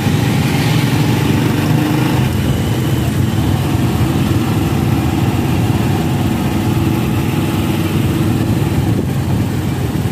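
Motorcycle engine of a tricycle running steadily, heard from the passenger sidecar, with an even hiss of road and wind noise over it.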